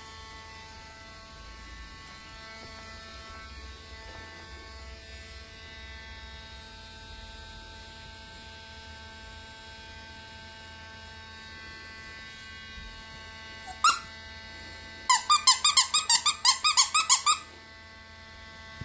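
Dremel pet nail grinder running steadily with a thin, even whine. Near the end it is cut across by one sharp high squeak, then a quick run of about a dozen loud high squeaks.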